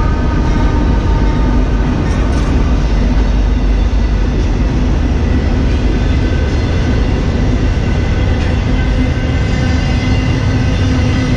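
Freight train cars (tank cars, covered hoppers and flatcars carrying trailers) rolling past. Their steel wheels make a steady, continuous rumble on the rails.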